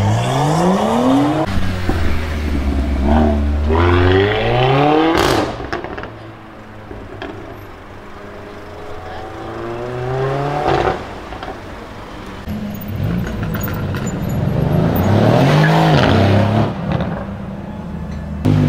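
Several Mercedes-AMG cars accelerating hard one after another, each engine revving up and shifting up through the gears. There is a sharp crack about five seconds in. Near the end one car rises and falls in pitch as it passes by.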